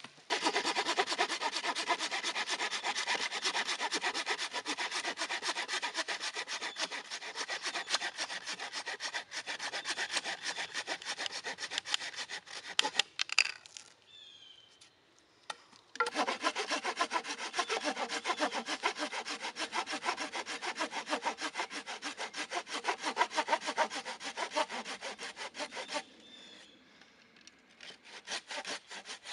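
Small hand saw cutting through a wooden stake with quick back-and-forth rasping strokes. It runs in two long bouts with a pause of about three seconds between them, and softer strokes near the end.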